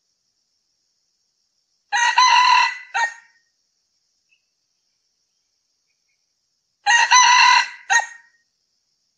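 Male red junglefowl crowing twice, about five seconds apart. Each crow is a short cock-a-doodle phrase ending in a brief, separate final note.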